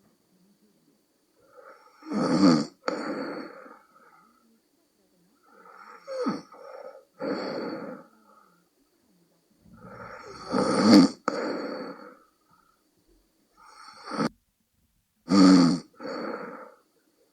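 A sleeping person snoring with the deep, croaking 'bullfrog' snore. There are about four breath cycles, roughly one every four seconds, each a loud snore followed at once by a softer one, with quiet pauses between.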